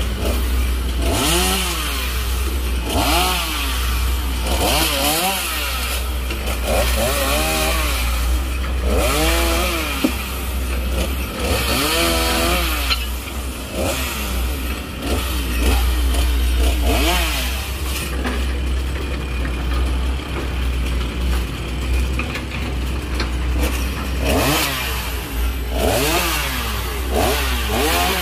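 A petrol chainsaw cutting branches, revving up and dropping back again and again, about every one and a half to two seconds. Under it runs a steady low rumble.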